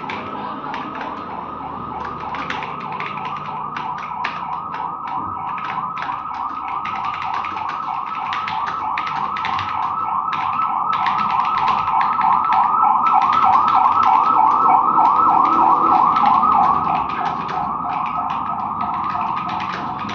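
Computer keyboard typed on at speed, the keys clicking in quick runs with short pauses. Over it an electronic siren wails in a fast warble, growing louder to a peak about three quarters of the way in and then fading.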